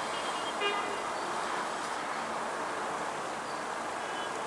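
Steady buzzing of honeybees swarming over an opened hive's frames, from a colony the beekeeper calls a bit angry. A brief high chirp about two-thirds of a second in.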